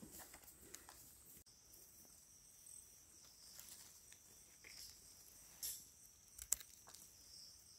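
Near silence with a faint, steady high buzz of insects in the forest, and a few soft clicks and rustles of leaf litter and mushroom handling about two-thirds of the way in.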